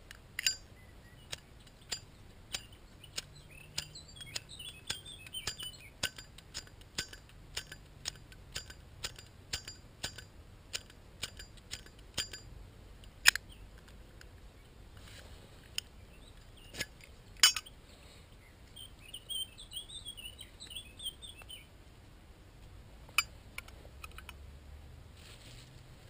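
Metal Zippo lighter clicking sharply over and over, about two clicks a second for some twelve seconds, then a few louder single clicks. Small birds chirp in the background.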